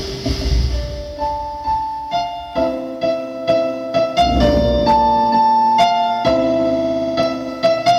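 Electric-piano intro of a Brazilian funk track playing loudly through a home PC sound system. It starts with single held notes, builds into chords, and a deep bass swell comes in midway.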